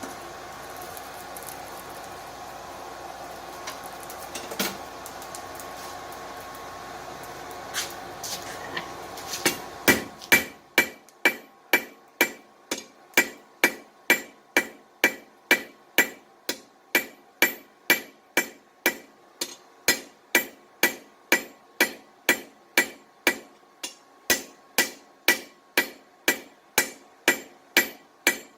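Blacksmith's hand hammer drawing out a taper on a hot steel curtain-rod bar, striking evenly about twice a second, each blow ringing. The hammering starts about ten seconds in. Before it there is only a steady rushing noise with a few light clinks.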